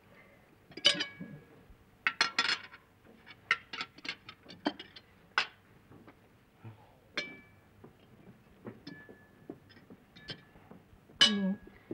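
Cutlery clinking against china plates and glassware at a dinner table: a scattered series of short sharp clinks, some ringing briefly. A short voice sound comes near the end.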